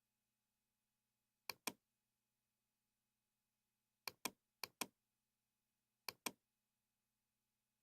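Computer mouse clicked four times, each click heard as a sharp press and release about a fifth of a second apart. The clicks come at about a second and a half in, at about four seconds (twice in quick succession) and at about six seconds, over a faint steady hum.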